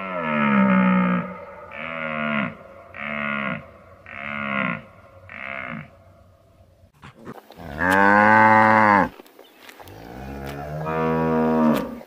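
Reindeer giving a run of five short grunting calls about a second apart, then a cow mooing twice, two long calls, the first the loudest.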